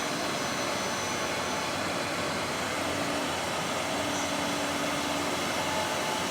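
Four-head CNC wood router running: a steady, even machine noise with a faint low hum that comes and goes.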